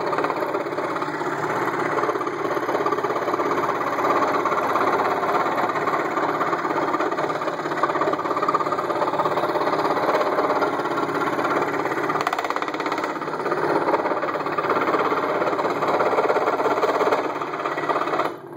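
Ryobi benchtop scroll saw running at about 1,000 strokes a minute, its blade cutting a curved puzzle-piece line through a wooden board. The steady saw noise stops abruptly just before the end.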